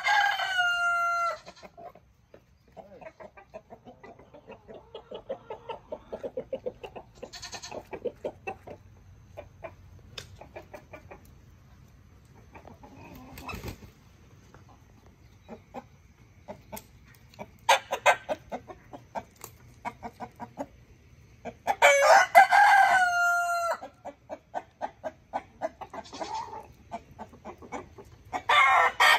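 Backyard chickens: a rooster crowing several times, with a long crow at the start and another about three quarters through. In between, hens cluck softly in quick runs of low notes.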